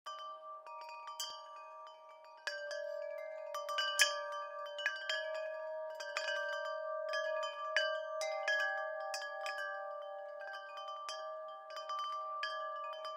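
Wind chimes ringing: metal tones struck in irregular succession, a few a second, each note ringing on and overlapping the next.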